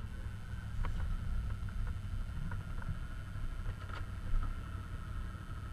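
Wind buffeting the microphone as a steady low rumble, with a faint high-pitched whine running underneath.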